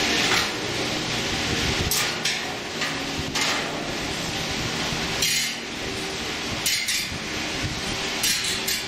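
Irregular metal knocks and clinks from the gas valve manifold of a Ducane stainless steel grill as it is worked loose by hand and pulled out.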